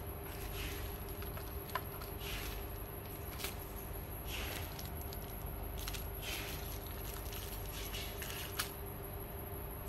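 Small plastic switch modules and their wiring harness being handled on bubble wrap: scattered rustles and crinkles and three sharp clicks over a steady hum.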